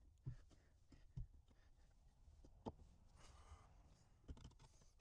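Near silence with a few faint knocks and clicks, about four, as parts and hardware are handled.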